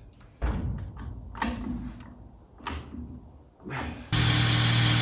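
A few separate knocks, then a power tool starts about four seconds in and runs at a steady pitch.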